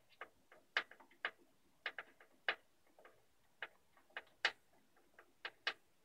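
Screwdriver turning a screw into a graphics card's metal bracket at the PC case's slot rail: faint, sharp, irregular clicks, one or two a second.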